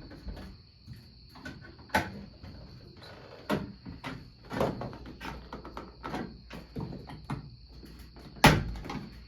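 Irregular knocks, clicks and rattles of a fire alarm device being handled and its cover opened, with one sharp knock near the end. A faint steady high whine runs underneath.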